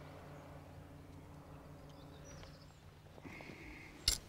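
Fly rod sections being handled as they are drawn from a cloth rod bag, mostly quiet over a steady low hum. Near the end there is one sharp click as the rod sections knock together.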